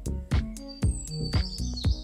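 Background music with a steady beat, about two beats a second. High, quick chirping notes come in a little under a second in.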